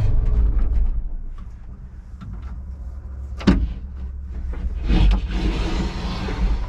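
A vehicle engine cuts off. Then come a low rumble and scattered clicks and knocks, with a sharp knock about halfway through, a brief rushing noise near the end, and another sharp knock at the close.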